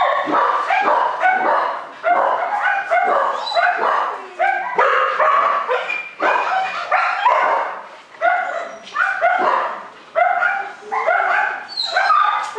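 Puppy barking and yapping over and over, a few short high yaps a second in runs broken by brief pauses.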